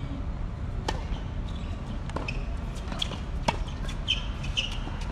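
Tennis balls being struck by rackets and bouncing on a hard court during a doubles rally that opens with a serve: sharp pops about once a second.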